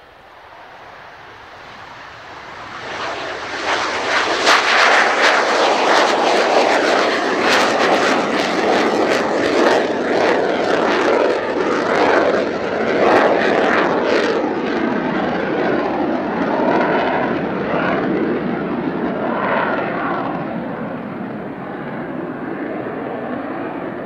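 Two J79 turbojet engines of an F-4EJ Kai Phantom II at takeoff power as the jet lifts off and climbs away. The jet noise swells over the first few seconds, crackles harshly while it is loudest, then slowly fades as the aircraft draws away.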